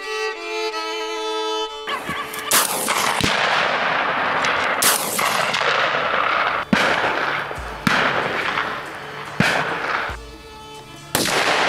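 A volley of hunting-rifle shots, about seven, spaced roughly one to two seconds apart, each followed by a long rolling echo. Background music plays during the first two seconds, before the shooting starts.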